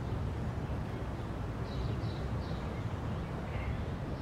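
Steady low rumble of background ambience with several short, faint bird chirps over it.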